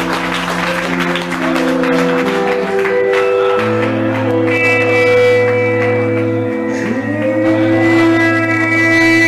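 Metal band playing live: a slow passage of long, held electric guitar chords that change every second or so, with a sliding note rising about seven seconds in. Crowd noise fades under the music in the first moments.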